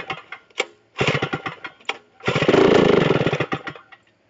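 Cold West Bend 820 two-stroke kart engine on a Racine cut-off saw being pull-started: it fires in short bursts on successive pulls of the recoil starter. The longest burst runs about a second and a half from about two seconds in, then dies away.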